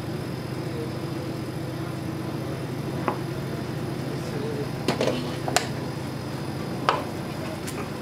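Restaurant kitchen sounds: a steady low mechanical hum with about half a dozen short, sharp knocks and clinks of utensils and cookware scattered through the second half.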